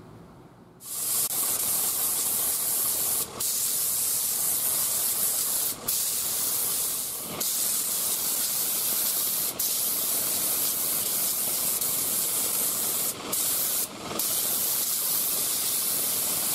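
3M Performance HVLP spray gun spraying a light coat of grey sealer: a steady high hiss of air and atomised sealer that starts about a second in and breaks off briefly six times.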